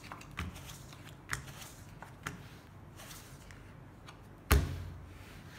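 Playing cards being dealt from a clear acrylic card shoe and flipped onto a felt table: a few light card clicks and slides, then one much louder slap about four and a half seconds in.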